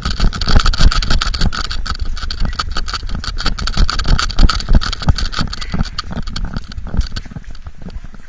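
Body-mounted action camera knocking and rubbing against a small dog as it moves: a rapid, uneven run of thumps and scrapes over a steady rasping noise, stopping abruptly at the end.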